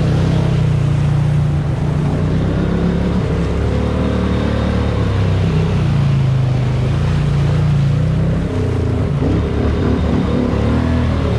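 Polaris Sportsman Highlifter ATV engine running under way, its note rising and falling with the throttle and turning uneven in the last few seconds.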